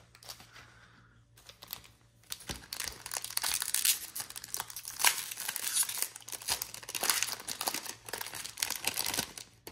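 Shiny wrapper of a trading card pack crinkling and tearing as it is pulled open by hand, starting about a second and a half in and running as a dense crackle of small sharp clicks.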